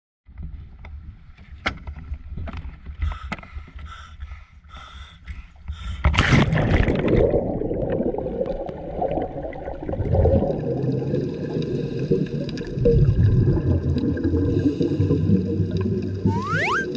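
Sea water slapping against a small boat with scattered light knocks, then about six seconds in a splash as the camera plunges into the sea, followed by a muffled underwater rumble and hiss.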